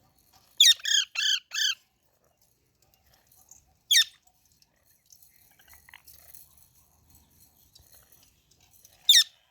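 Baby parrot calling: a quick run of four chirps about half a second in, then a single sharp falling call at about four seconds and another near the end, with faint soft chatter between.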